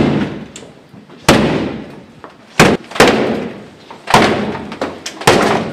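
A door being forced with heavy blows, most likely a police battering ram: loud impacts about every second and a quarter, one of them doubled, each ringing on in the stairwell.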